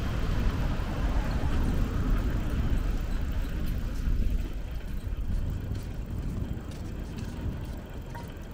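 Road traffic: a passing motor vehicle's low rumble, loudest at first and fading away over several seconds.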